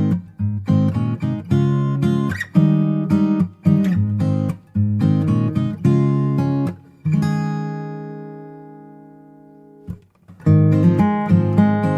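Background music: acoustic guitar played in a rhythmic pattern, with a chord left ringing and fading out about seven seconds in, then playing picks up again after a short pause.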